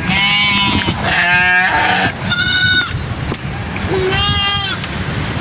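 Sheep bleating, four separate quavering bleats of differing pitch, as from several animals in a flock.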